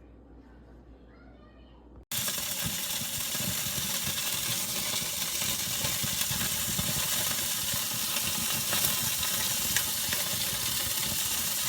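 Something burning inside a Hamilton Beach Easy Reach toaster oven, a steady crackling and sizzling that starts abruptly about two seconds in. The oven is overheating and flaming inside.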